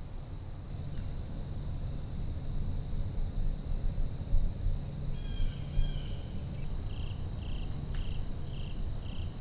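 Insects trilling in the woods: a steady high-pitched buzz that shifts abruptly about a second in and again near the end, joined in the last few seconds by a regular chirp about twice a second, over a low rumble.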